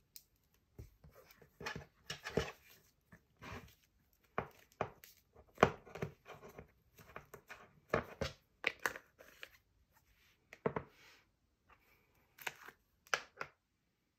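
Butter slime being squeezed, stretched and pressed by hand, giving irregular short sticky crackles and pops. Near the end, plastic slime jars are handled and a lid is taken off.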